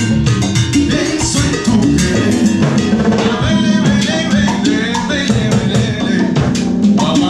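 Live salsa band playing, with drum kit and congas driving a busy, steady beat under the band.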